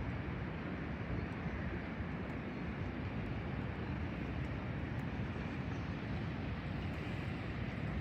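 Wind buffeting the microphone on an open harbour quay: a steady low rumbling noise with no distinct events.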